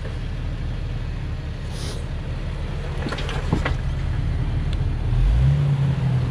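Jeep Wrangler engine running at low revs as it crawls over rocks, rising to a louder, steadier pull about five seconds in. A few sharp knocks come about three seconds in.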